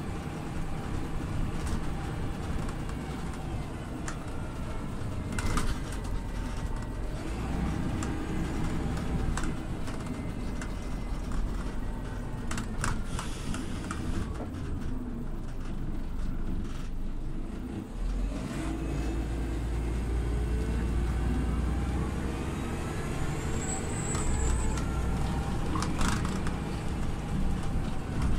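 Scania OmniLink city bus running, heard from inside: a steady engine drone with a whine that glides up and down as the bus changes speed, and scattered clicks and rattles.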